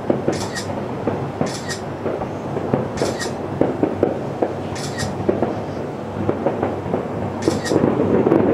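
Distant aerial fireworks bursting in quick succession: a continuous rumble of booms and crackles that grows louder near the end. A short high double tick recurs every second or two over it.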